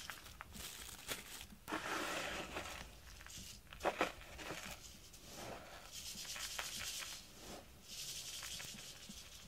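A hand stroking a cat's fur, a soft rubbing swish with each stroke. A couple of brief knocks about four seconds in are the loudest sounds.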